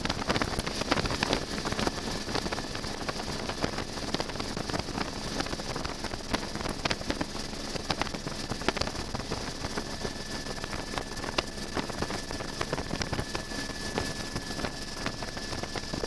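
Helicopter in flight, heard from inside the cabin: a steady engine and rotor drone with a thin, steady high whine, and frequent small clicks.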